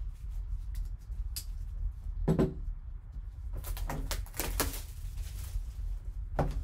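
Cardboard trading-card box handled by gloved hands: a few knocks, a strong one about two seconds in, then a stretch of scraping and rustling as the box is slid and turned over, and another knock near the end. A steady low hum runs underneath.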